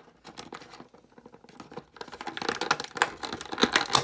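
Thin clear plastic blister tray crackling and clicking as a small plastic toy figure is pried out of it by hand: a rapid run of small clicks that gets busier and louder in the second half.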